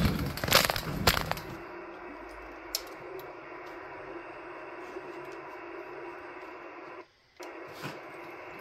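Steady static from an Icom IC-751A HF receiver's speaker tuned to an empty stretch of the 75-metre phone band, with a few sharp clattering knocks in the first second and a half. The static cuts out briefly about seven seconds in.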